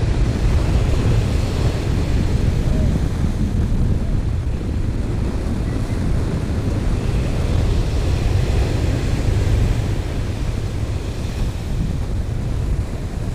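Wind buffeting the microphone over the steady wash of breaking surf, a loud, even rumble.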